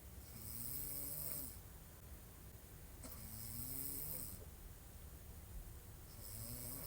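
A woman snoring in her sleep, lying on her back: three snores about three seconds apart, each a little over a second long, a low pitched tone over a breathy hiss.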